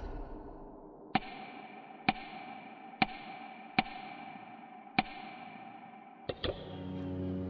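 A sharp click about once a second, each one as the on-screen year counter steps forward, over a faint steady tone; near the end two quick clicks, then low sustained music comes in.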